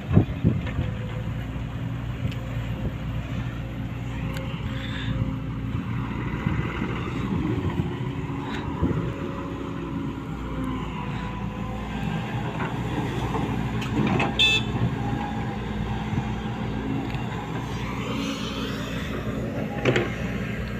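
Diesel engines of a Volvo excavator and dump trucks running steadily, a low even hum, with a sharp knock about 14 seconds in and another near the end.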